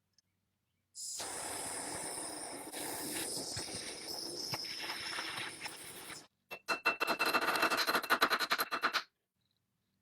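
Hand abrasive work on metal: a steady scrubbing hiss for about five seconds, then after a brief break a fast run of rasping strokes, about ten a second, with a faint ringing tone.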